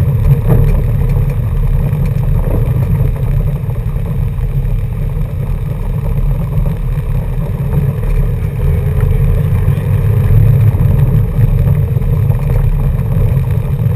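Car's engine and tyres on a gravel track, heard from inside the cabin: a steady low rumble.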